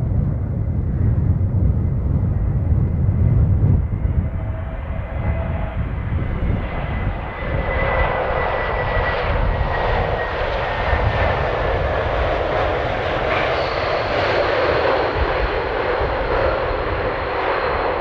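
Airbus A321neo airliner landing. First a low rumble of wind and distant engine. Then, from about seven seconds in, as the jet rolls out along the runway close by, its engines give a loud rushing noise with a high whine that slowly falls in pitch, and a higher steady tone joins near the end.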